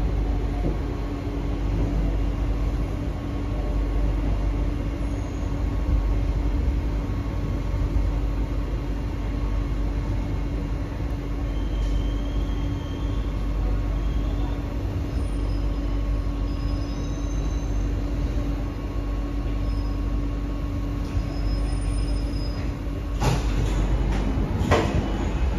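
Kawasaki–CRRC Sifang C151B metro train heard from inside the car: a steady rumble with a steady hum, and a few faint short high squeals. A few sharp knocks come near the end.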